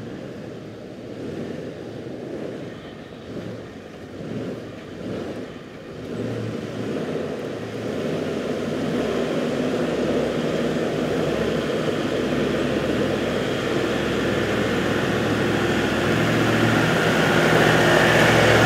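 A four-wheel-drive vehicle driving on a rough outback track, its engine and tyre noise running steadily and growing gradually louder through the second half.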